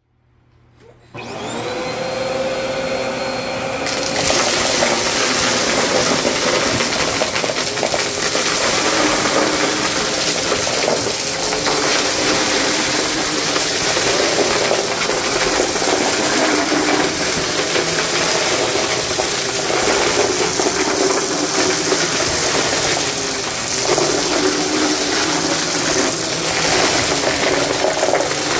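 Vacmaster stick vacuum switched on about a second in, its motor whine rising to speed. From about four seconds it is pushed over carpet, and the whine gives way to a dense rattling noise as it sucks up a scattered mix of small hard debris.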